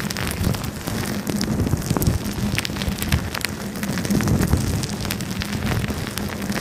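Clear plastic wrap being squeezed and rubbed right at the microphone, ASMR-style: a dense, continuous crinkling crackle full of sharp little clicks.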